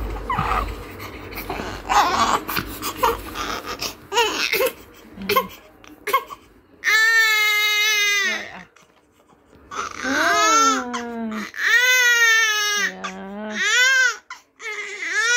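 Newborn baby crying. Scattered fussing sounds come first, then from about seven seconds in there are four loud wails, each rising and falling in pitch and lasting a second or more.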